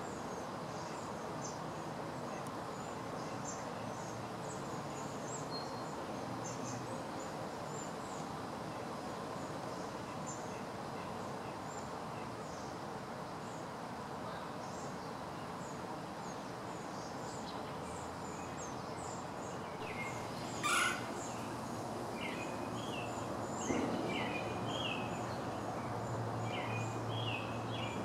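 Steady background hiss with many small birds chirping throughout: thin high chirps at first, joined by lower, stronger chirps in the second half. One brief sharp sound stands out about two-thirds of the way through.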